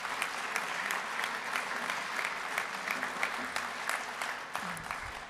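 Audience applauding: a dense, steady clatter of many hands clapping, tapering off near the end.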